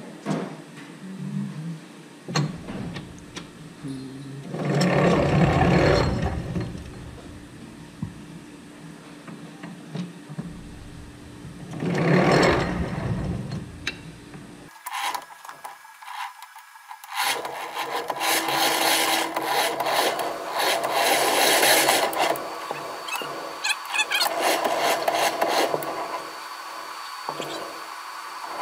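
Rasping, rubbing scrapes: two short loud scrapes, then from about halfway a steady, rapid rasping that keeps going.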